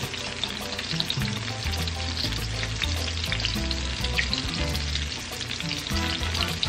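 Battered chicken pieces deep-frying in hot oil in a pan: a steady crackling sizzle.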